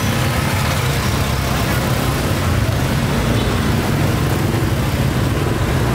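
Steady traffic noise in a busy market street: the low, even drone of motorbike engines running nearby, with a constant hiss of street noise over it.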